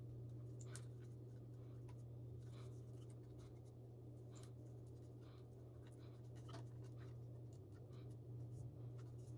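Faint light clicks and scratches of hands handling and fitting plastic emblem pieces, scattered irregularly, over a steady low hum.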